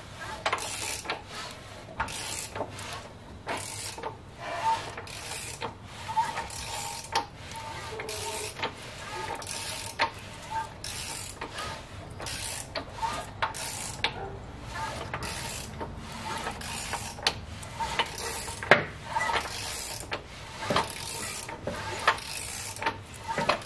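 Ratchet wrench clicking in repeated short strokes as the 1.8L QG18DE engine is turned over by hand. This is done to check that the freshly set timing is right and the valves do not hit.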